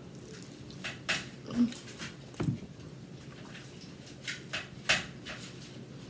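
Chewing and lip-smacking while eating pizza: a few short smacks and clicks scattered through.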